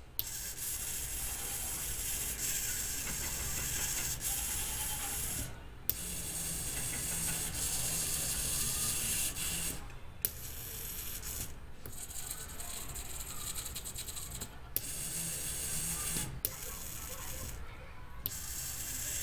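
Small hobby servo motors running, a whirring gear buzz in stretches of a few seconds. It stops briefly several times, with a sharp click at some of the stops.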